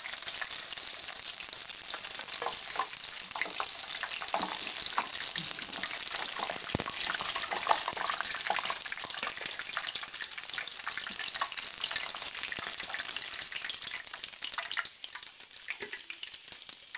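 Chicken pieces deep-frying in hot oil: a steady sizzle full of sharp crackles, with a single knock about seven seconds in. The sizzle drops away near the end as the last pieces come out of the oil.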